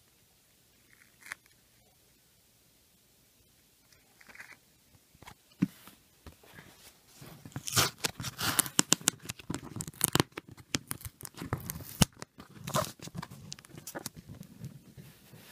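Shipping packaging being torn open by hand: a few light clicks at first, then a dense run of ripping and crackling from about halfway in.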